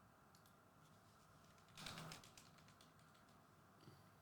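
Near silence with faint room tone, broken by a few soft clicks and a short run of quick clicks about two seconds in.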